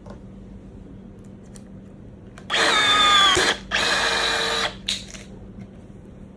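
Cordless blind-rivet tool setting a multi-grip blind rivet: the motor whines in two runs of about a second each, then a short click.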